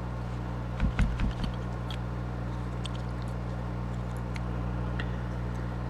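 Small clicks and taps from handling a model locomotive while working at one of its tiny screws, with a few low bumps about a second in, over a steady electrical hum.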